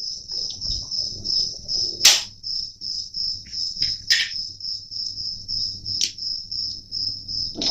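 A cricket chirping in a steady, evenly pulsed high trill, with a few sharp knocks about two, four and six seconds in.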